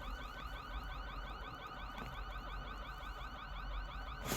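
Electronic car alarm siren sounding a fast, repeating rising chirp, about six chirps a second, that stops shortly before the end.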